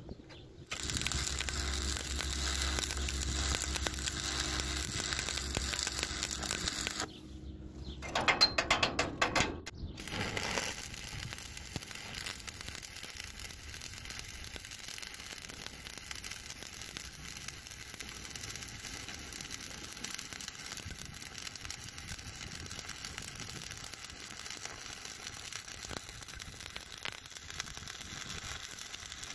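Stick (electrode) arc welding on steel tubing: a steady crackling arc with a low electrical hum for several seconds, then a short run of sharp clicks and taps about eight seconds in, followed by a quieter steady crackle.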